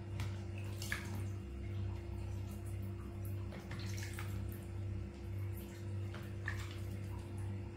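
Water splashing and dripping as a hand scoops it from a plastic dipper and trickles it over a baby monkey, a few short splashes a second or more apart, over a steady low drone of background music.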